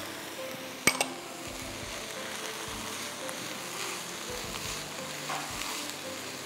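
Minced meat with freshly added blended tomatoes sizzling steadily in a nonstick frying pan while it is stirred with a silicone spatula; two sharp clicks about a second in, from the spatula knocking against the bowl or pan.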